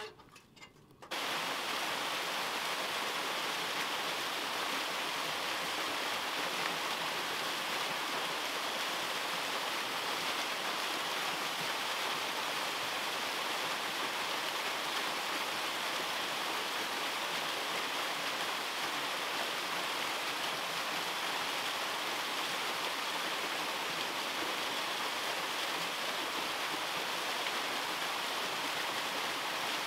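Small waterfall splashing into a rocky stream pool: a steady, even rush of water that starts about a second in.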